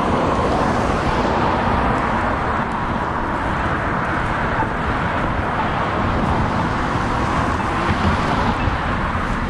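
Steady, even roar of road traffic, with no distinct passing vehicle or other event standing out.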